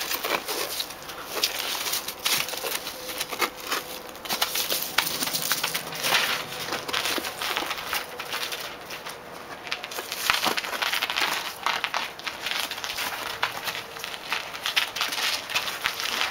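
Crunching and scuffing steps and paws on a thin layer of snow, a dense, irregular crackle of many short clicks.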